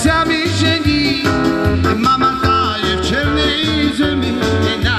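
A lively song with singing over a steady, pulsing bass beat.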